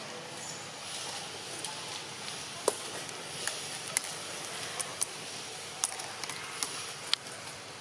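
Long-tailed macaque biting into and chewing small round fruits: a scattering of short, sharp cracks and clicks, the loudest a little under three seconds in, over a steady outdoor hiss.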